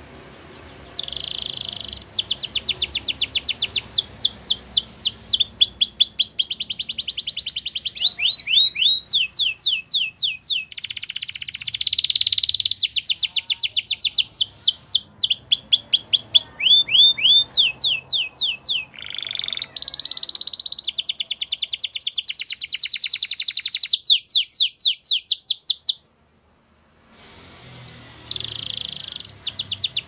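Canary singing a long, continuous song of fast trills and rapid strings of repeated notes, switching from one rolling phrase to the next. It stops abruptly for about a second near the end and then starts again.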